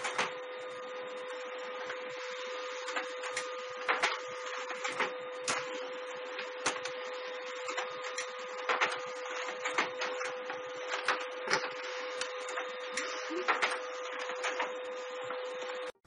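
Desktop printer running: a steady mechanical hum with a constant tone, punctuated by many irregular clicks and ticks.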